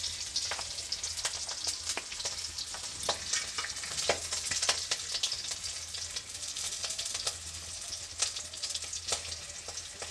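Curry leaves, green chillies and asafoetida sizzling in hot refined oil in a kadai, with frequent sharp crackles and pops as the tempering fries.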